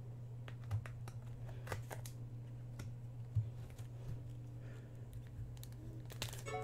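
Faint clicks and rustles of a trading card being slid into a thin plastic card sleeve, over a steady low hum.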